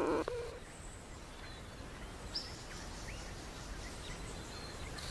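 Quiet background ambience: a steady low hiss with a few faint, brief high chirps. A rushing noise cuts off just after the start.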